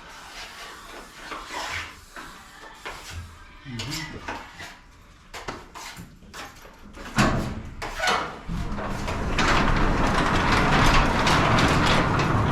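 Scattered light clicks and knocks, then a sudden clunk about seven seconds in. After that a garage door runs on its electric opener, a steady loud rumble of motor and rollers that carries on to the end.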